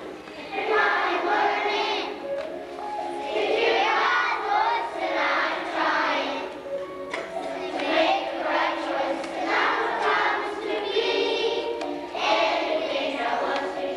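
A group of young children singing a song together, phrase after phrase, with short breaks between lines.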